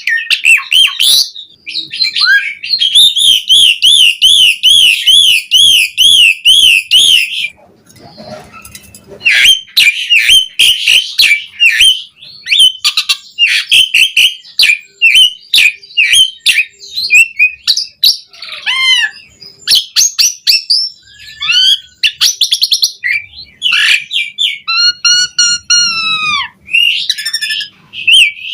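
Asian pied starling (jalak suren) singing loudly and continuously: a varied song of rapid clicks and chatter, a long run of quick repeated warbled notes, and several downward-curving whistles, full of mimicked phrases. There is a short pause about a third of the way in.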